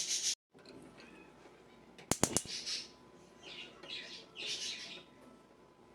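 Gas stove igniter clicking rapidly a few times as the burner is lit under the pan of water, followed by a few short high chirps.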